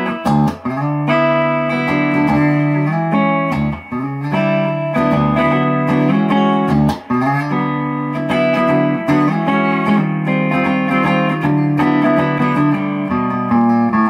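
Squier Standard Stratocaster-style electric guitar with white pickups, played through a combo amp: a run of ringing chords and single notes, with short breaks about half a second, four and seven seconds in.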